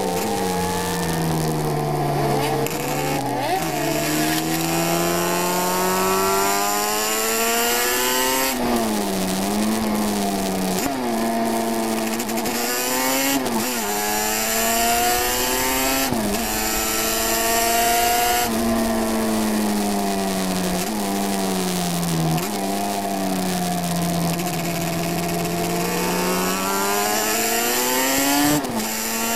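Onboard sound of a 350cc classic racing motorcycle's engine under way, its note climbing with revs and dropping sharply at each gear change, several times over. Wind rush and short crackles from a damp microphone run under it.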